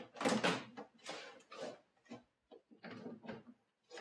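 Mafell KSS 300 saw and its track being fitted into a plastic Mafell MAX tool case: a run of irregular knocks, clicks and rattles of plastic and metal.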